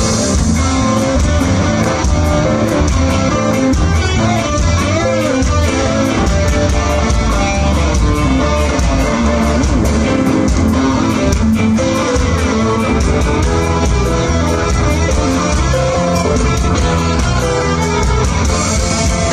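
A ska band playing live and loud through a festival PA, heard from within the crowd: strummed electric guitars and bass over a steady drum beat.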